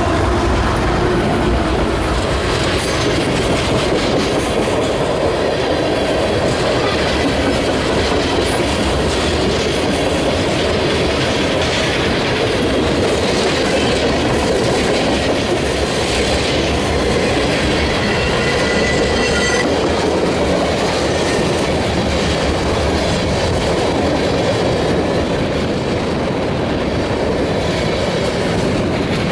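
Empty ethanol tank cars of a freight train rolling past close by: a steady, loud rumble with wheels clicking over rail joints and a faint wheel squeal. The hum of the trailing diesel locomotives fades out in the first couple of seconds.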